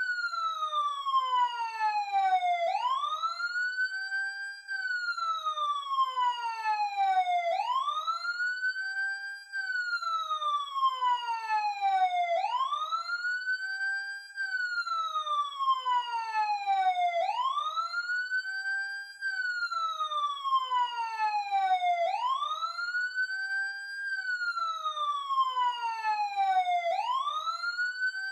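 Emergency siren wailing in a repeating cycle about every five seconds: the pitch sweeps up quickly, holds briefly at the top, then falls slowly before rising again.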